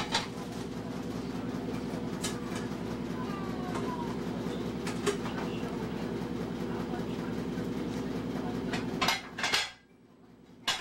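An electric motor running with a steady hum and a few sharp clicks and knocks, shutting off suddenly near the end.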